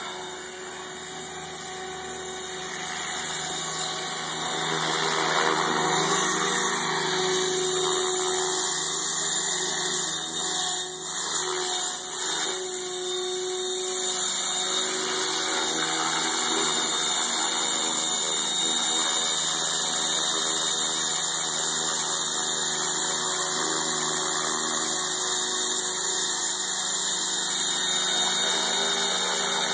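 MSH Protos 500 electric RC helicopter in flight: its brushless motor and main gear whine steadily with the hum of the spinning rotor blades. It grows louder over the first few seconds as it comes nearer.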